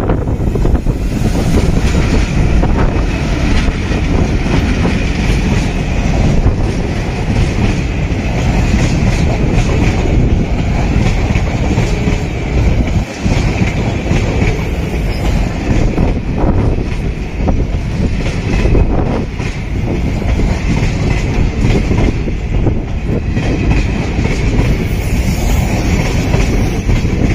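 Diesel-hauled passenger train passing close by: the diesel locomotive goes past first, then a long string of sleeper coaches rolls by with a steady loud rumble and the clickety-clack of wheels over the rail joints.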